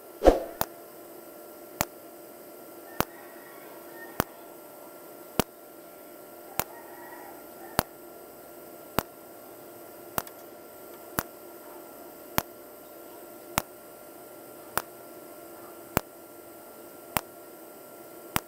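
Tenya TIG250PC welder in cold-TIG mode firing automatic arc pulses: sharp ticks at an even pace of about one every 1.2 seconds, each a 30-millisecond pulse at 210 amps, set to a slow pulse rate. A steady faint hum lies underneath.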